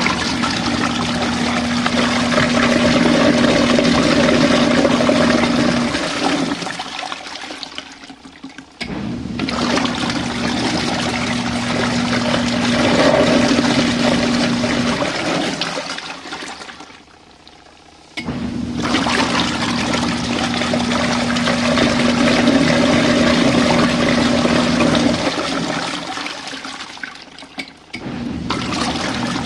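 Compact RV washing machine running a rinse: the motor hums and churns the water in repeated bursts of about six seconds, stopping for two to three seconds between them, three times over.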